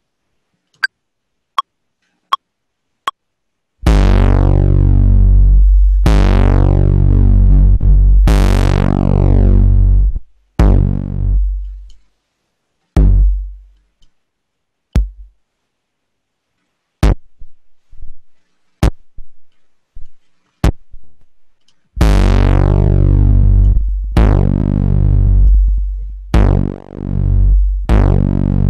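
Saturated 808 bass notes driven through a Neve channel-strip preamp plugin: deep sustained bass tones whose bright, buzzy upper harmonics are strongest at each attack and fade while the low end holds, the sign of the saturation being pushed hardest at the loud front of the sound. The notes come in a run of different lengths, several around two seconds long and some short clipped hits, after four short evenly spaced ticks at the start.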